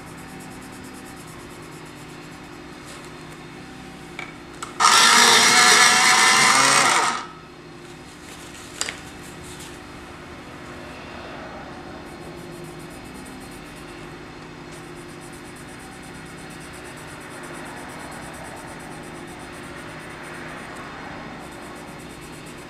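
A small electric motor runs loudly for about two and a half seconds, with a few light clicks just before it and one just after, over a steady low background hum.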